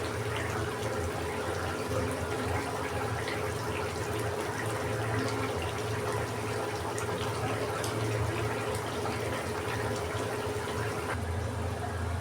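Fish curry simmering in the pan: a steady bubbling with scattered small pops, over a low hum.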